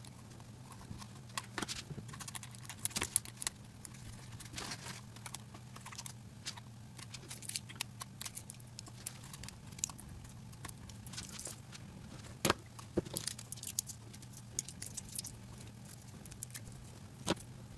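Scissors snipping excess Kapton tape from the edge of a 3D printer's aluminium heated bed, with irregular sharp clicks, taps and crinkles as the bed and tape are handled. A low steady hum runs underneath.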